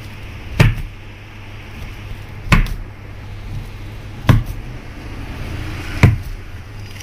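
Long knife cutting slices off a frozen, nut-coated kulfi roll, the blade knocking down onto the foil-covered surface four times, about every two seconds. A steady low hum runs underneath.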